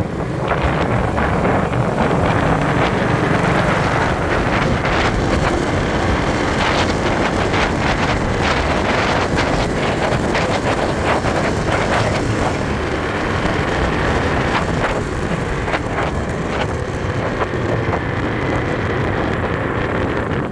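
Wind buffeting a handlebar-mounted microphone on a moving Honda motor scooter, gusting unevenly, with the scooter running at road speed underneath.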